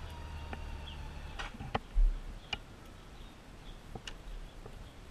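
A touring motorcycle's engine idles low and cuts off about a second and a half in. A few sharp clicks follow, and there is a short low thump about two seconds in.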